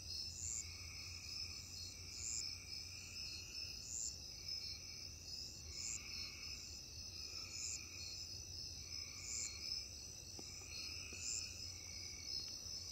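Faint night chorus of crickets and other insects trilling steadily, with a short high chirp repeating about every two seconds and a slower pulsing call beneath it. A low steady hum runs underneath.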